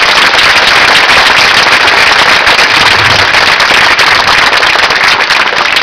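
Audience applauding: dense, loud clapping from a large crowd.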